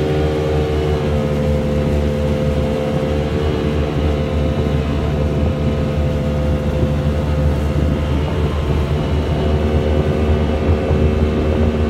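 An engine runs steadily at a constant speed, a loud, even hum with some wind-like rushing noise over it.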